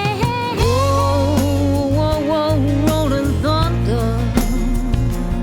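Blues song passage without transcribed lyrics: a steady drum beat and bass under a lead melody line that bends and slides in pitch.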